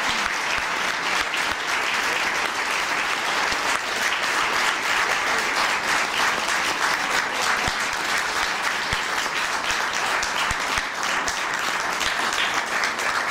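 A large audience applauding: dense, steady clapping that keeps an even level throughout.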